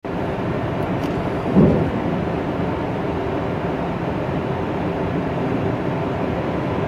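Steady running hum of an NS VIRM double-deck electric train waiting to depart, with a short thump about a second and a half in.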